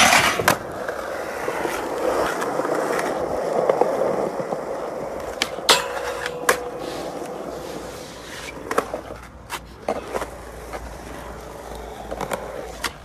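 Skateboard wheels rolling on concrete, with sharp clacks of the board popping and landing several times. About six seconds in, the board slides briefly along a metal rail.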